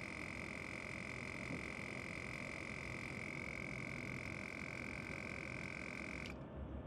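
Viair 70P portable 12-volt air compressor running steadily with a high whine, then switched off, cutting out abruptly about six seconds in.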